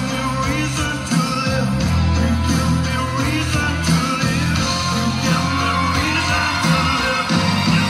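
Loud pop music with a steady bass line and singing, with women yelling and shrieking over it.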